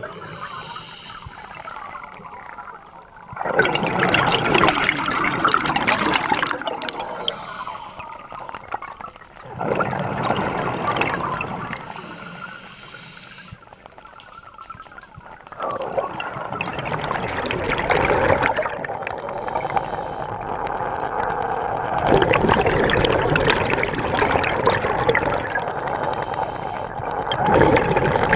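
Scuba diver breathing through a regulator underwater: bubbling exhalations come in surges of a few seconds each, with quieter stretches between them.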